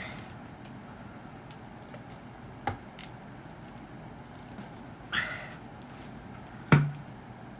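Gulps from a woman drinking cola: three short, sudden sounds a couple of seconds apart. The last and loudest has a brief low-pitched note.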